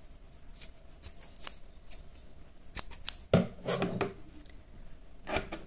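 Scissors snipping through a bundle of crochet thread loops: a series of short, crisp snips in quick clusters, with soft handling noise of thread and fingers between them.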